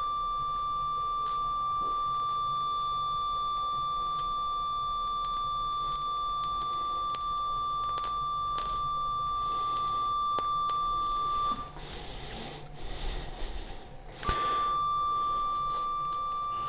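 Fotek ONYX electrosurgical generator sounding its steady high activation tone while bipolar forceps coagulate small vessels at the wound edge to stop the bleeding, with faint crackling over it. The tone stops about 11 to 12 seconds in and starts again about two seconds later, for a second activation.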